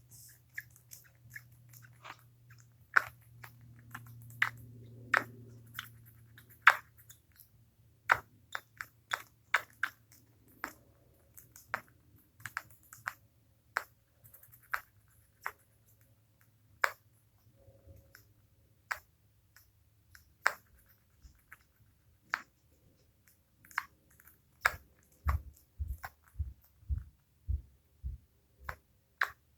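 Hiccups: a string of short, sharp clicks at irregular intervals, often about one a second, with a run of low thumps near the end.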